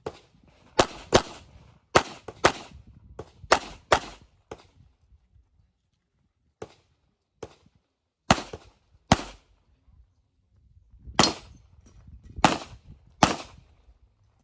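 Glock pistol shots fired at a practical-shooting stage, mostly as quick double taps about half a second apart. About eleven loud shots come in three groups, with a pause of a few seconds in the middle, and fainter single cracks between them.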